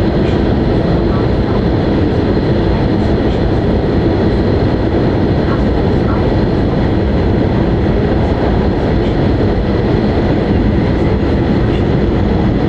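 Steady cabin running noise inside an E5 series Shinkansen car, an even low rush with faint steady higher tones over it.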